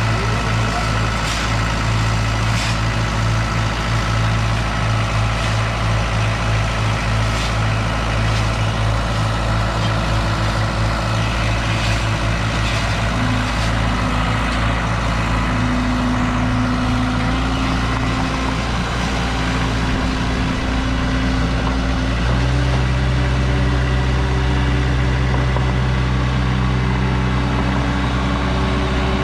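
Mini excavator engine running steadily, with a few sharp knocks in the first several seconds. Its note shifts about two-thirds of the way through and grows heavier and louder, as when the machine comes under load.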